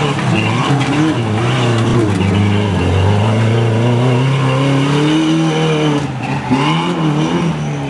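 Pickup truck engine revving hard under load on a dirt obstacle course, its pitch climbing and dropping with the throttle. Near the end the revs dip and there is a brief thump.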